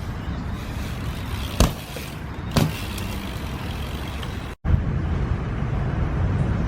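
BMX bike riding on pavement: a steady rumble of tyres rolling, broken by two sharp knocks about a second apart. A sudden cut then leads into another stretch of rolling rumble.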